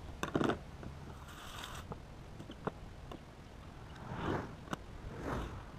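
Fish being cut open and cleaned by hand: a knife rasping and scraping through the fish. It comes as separate strokes, with a few sharp clicks and knocks in between.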